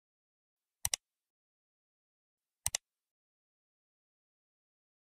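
Mouse-click sound effect heard twice, each a quick double click, over digital silence.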